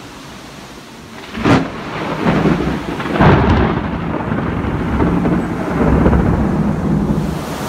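Thunder close by: a sharp crack about a second and a half in, a second crack about three seconds in, then a long rolling rumble over the steady hiss of heavy rain.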